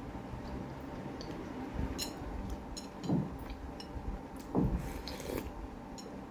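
A person eating close to the microphone: chewing and mouth sounds, with a few light clicks and clinks of tableware.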